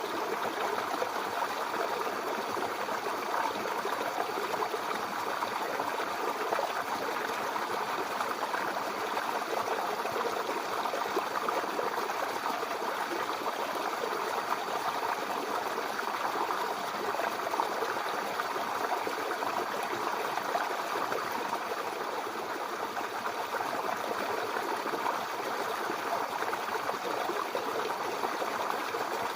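Babbling brook: a steady flow of water over stones, an even splashing and gurgling that holds constant.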